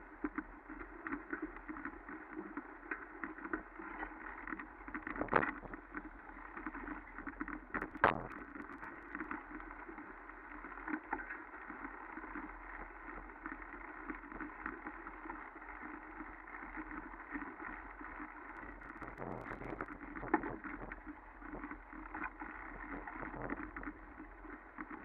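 Continuous rustling and crackling from moving along a forest path through grass, leaf litter and undergrowth, with two louder sharp clicks about five and eight seconds in.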